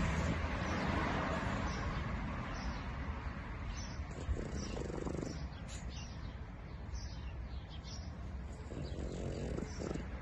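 French bulldog snoring in its sleep: two drawn-out snores about four seconds apart.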